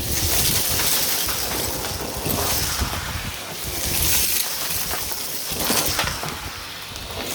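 Vacuum cleaner running, a steady hiss of rushing air with scattered crackles and clicks of grit being sucked up.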